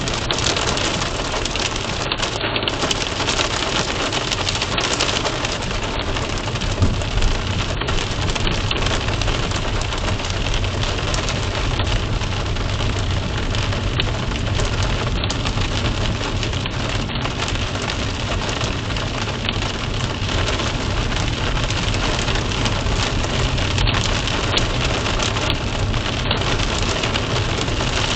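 Steady rain falling, an even wash of drops with no let-up, with two slightly louder taps about seven seconds in.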